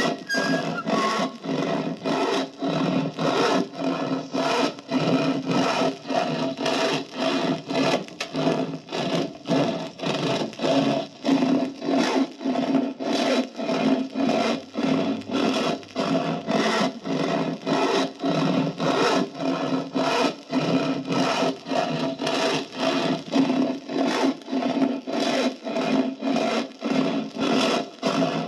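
Long hand saw cutting through a wooden tree limb in quick, even back-and-forth strokes, a little over two a second, with a rasping sound.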